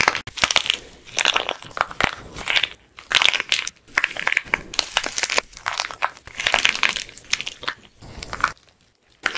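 Hardened plaster clay crushed and crumbled by hand: dense, irregular crunching and crackling in quick bursts, dying down near the end.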